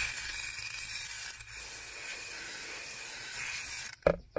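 Aerosol can of car AC foam cleaner spraying through a hose into the air-conditioning ducts and evaporator: a steady hiss that stops abruptly about four seconds in, followed by two short clicks.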